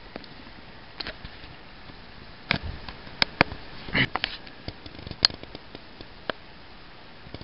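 Grass stems brushing and rustling against the camera, a few short rustles and sharp clicks spaced a second or so apart over a faint steady hiss.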